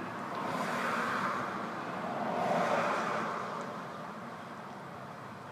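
Traffic noise from passing vehicles: a steady rush that swells twice, about a second in and again near three seconds, then fades.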